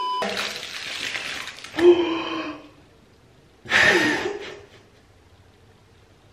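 A TV test-pattern beep, cut off after a moment, followed by a burst of TV static hiss used as an edit transition. Then two short vocal sounds from a woman, the louder one about four seconds in.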